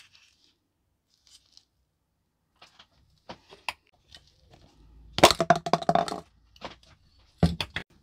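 Small parts and tools being handled on a wooden workbench: scattered light clicks, then a dense second-long clatter about five seconds in, and a shorter one near the end.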